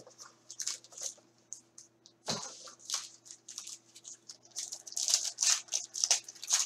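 Sealed trading-card box being torn open by hand: a run of short scratchy tearing and crinkling noises of cardboard and wrapper, busiest in the last two seconds, with one dull knock about two seconds in.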